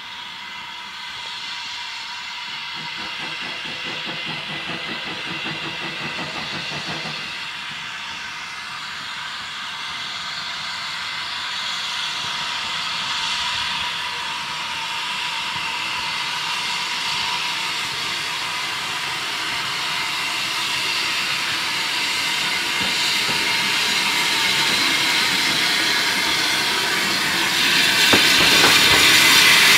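Avonside 0-4-0 saddle tank steam locomotive drawing a carriage towards the listener, a steady hissing that grows louder as it approaches and swells again near the end as it comes alongside.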